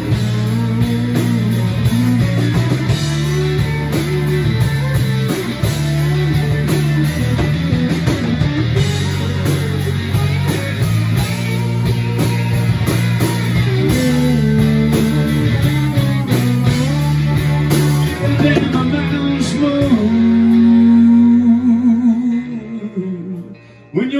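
Live rock band playing: electric guitars, bass guitar and drums, with no sung words. Near the end the band holds a long, wavering note that then dies away.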